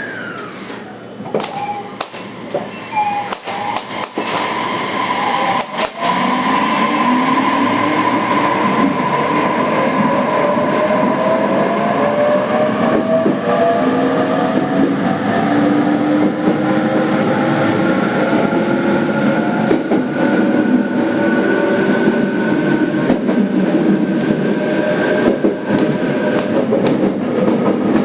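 Interior of a JR Kyushu 817 series 3000-subseries electric multiple unit's motor car pulling away: several knocks in the first few seconds, then from about six seconds in the inverter and traction motors give a set of whining tones rising together in pitch as the train accelerates, over steady wheel and running noise.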